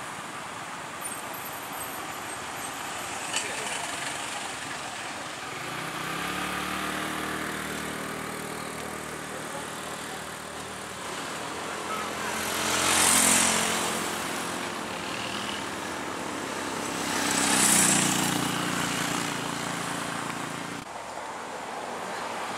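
Road traffic: a vehicle engine running steadily from about a quarter of the way in. Two vehicles pass loudly, one a little past the middle and one later.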